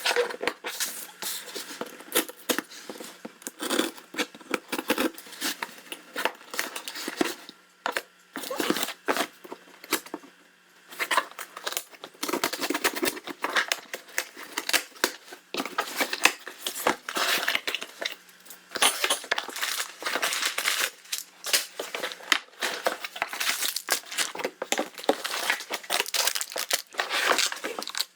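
Packaging being handled and unwrapped: irregular crinkling and tearing with many small clicks and knocks, dropping away briefly about ten seconds in.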